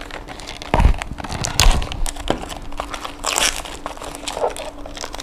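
Plastic wrapping crinkling and crackling as it is picked and peeled off a small cardboard model-car box, with two dull thumps about one and two seconds in.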